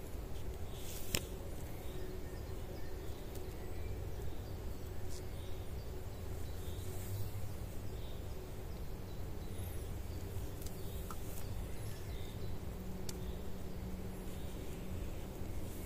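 Outdoor ambience: a steady low rumble with a few light clicks, the sharpest about a second in.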